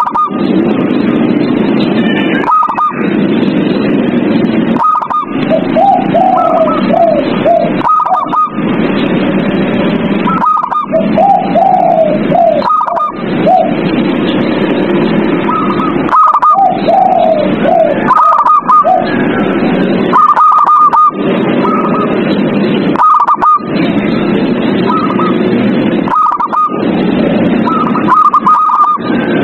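Zebra doves (perkutut) cooing repeatedly, short high notes and wavering falling phrases, over a loud steady background noise, with brief breaks every two to three seconds.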